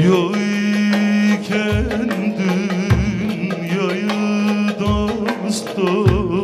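Turkish folk music: a man sings with a wavering, ornamented voice over a bağlama (long-necked saz), with a sustained low note beneath and a few low drum beats.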